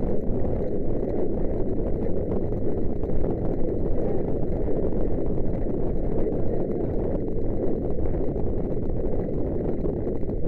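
Wind buffeting a helmet camera's microphone at a gallop: a loud, steady, dense low rumble.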